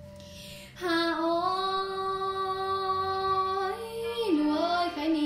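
A woman singing a Thái folk song (hát Thái), holding one long note that begins about a second in and then steps down in pitch in small slides near the end.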